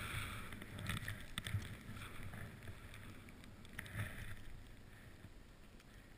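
Skis swishing through deep powder snow, with low wind rumble on the camera's microphone; the sound fades over the last few seconds.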